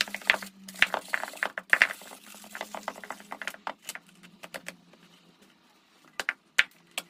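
Worn rope or fabric covering being pulled and torn off a cat scratching post: dense crackling and rasping that thins to scattered clicks after about two seconds, with a few sharp snaps near the end. A faint steady hum runs underneath.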